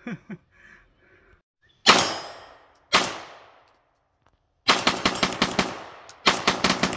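Custom side-charging AR9 9mm carbine firing: two single shots about a second apart, each with a long echoing tail, then two quick strings of rapid shots with a brief pause between them.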